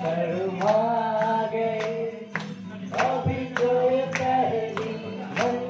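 A man singing a Hindi song into a microphone, holding long notes, while strumming an acoustic guitar in a steady rhythm of about one or two strokes a second.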